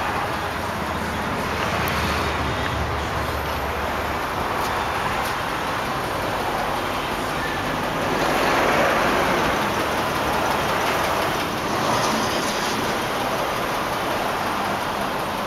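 Steady road-traffic noise, a hiss of passing cars that swells twice, once near the middle and again a few seconds later.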